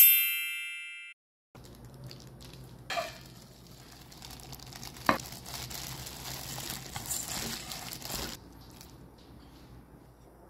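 A short bright chime that fades over about a second, then food-handling sounds: a disposable plastic glove crinkling as a hand squeezes cooked instant noodles and grated cheese together in a stainless steel bowl, with a couple of knocks about 3 and 5 seconds in. It goes softer near the end.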